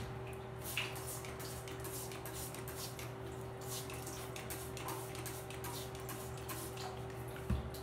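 Trigger spray bottle spritzing rice water onto hair in repeated short hissing squirts, roughly two a second, over a steady low hum. A single low thump comes near the end.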